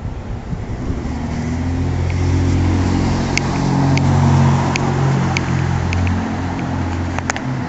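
A motor vehicle's engine running close by, a steady low hum that grows louder toward the middle and eases off slightly, with a few sharp light ticks scattered through it.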